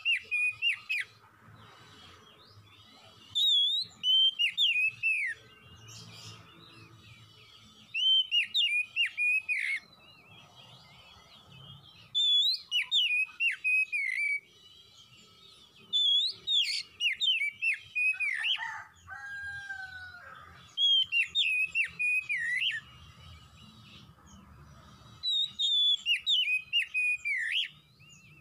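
Male oriental magpie-robin (kacer) singing: loud phrases of quick, varied whistled notes, each about two seconds long, repeated roughly every four seconds with short pauses between. A faint steady tone hangs in the gaps.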